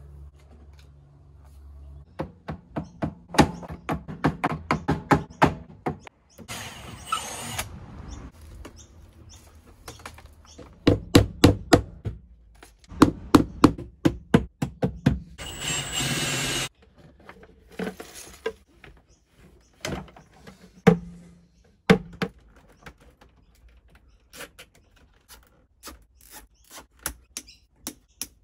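Irregular knocks, taps and clicks of hand work in a small space, some in quick runs, with three short bursts of hiss.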